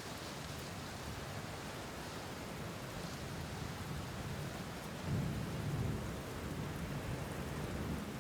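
Steady rainfall with a low rumble of thunder swelling about five seconds in.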